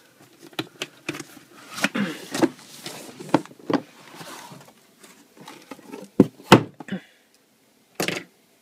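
Cardboard box being handled and its lid opened: rubbing and scraping of cardboard with scattered light knocks, two sharp knocks about six seconds in, and one short rustle about eight seconds in.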